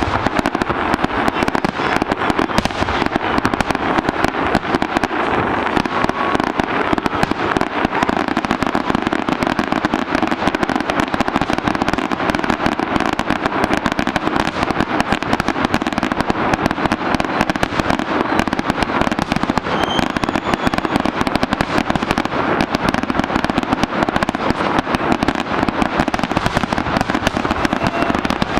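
Aerial fireworks display: a dense, unbroken barrage of shell bursts and crackling, the bangs following one another too fast to count.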